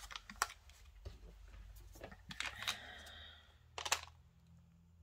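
Faint clicks and rustling from close handling of nail polish strips and their packets, with a louder cluster of clicks about four seconds in.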